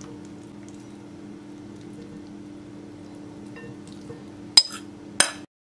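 Metal spoon scraping salad out of one glass bowl into another, with two sharp clinks of the spoon against the glass about half a second apart near the end. A steady low hum runs underneath.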